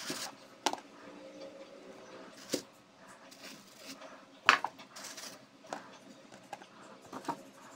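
Handling noise of clear soap bars and plastic bags: scattered crinkles, rustles and light knocks as the bars are picked up and set down among plastic wrap and zip-lock bags, with the sharpest click about four and a half seconds in.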